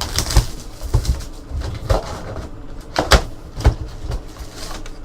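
Trading card hobby box and its packaging being handled and opened: a series of knocks and thumps, roughly one every half second to second, with rustling between them.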